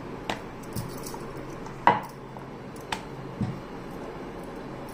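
Wooden rolling pin rolling roti dough out thin on a round wooden board: a soft steady rolling background with about five irregular light knocks and clacks of pin and board, the loudest about two seconds in.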